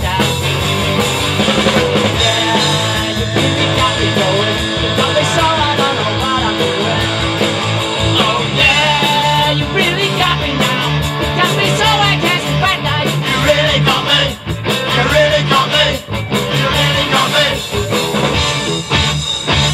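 Live rock band playing an instrumental passage: electric guitars over a drum kit.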